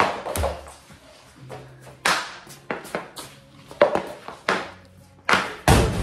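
Hockey stick blade striking pucks on a synthetic-ice floor: a series of sharp clacks at uneven intervals, with pucks banging off the boards, the loudest near the end as a shot is taken.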